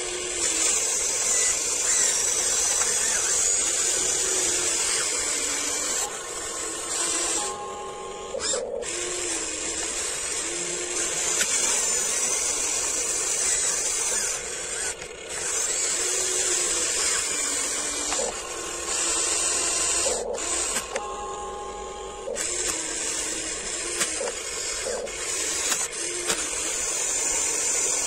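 Huina 1594 RC excavator's small electric motors and gearboxes whining as it works its arm and bucket, the pitch shifting with each movement and stopping briefly twice.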